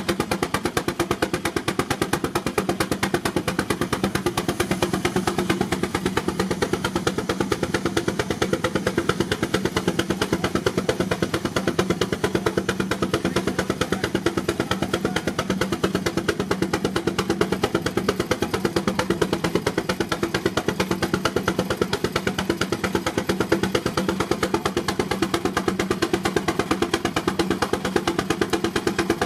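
Baker Uniflow 23-90 steam traction engine running under heavy load on a Prony brake, with rapid, even exhaust beats that hold steady throughout.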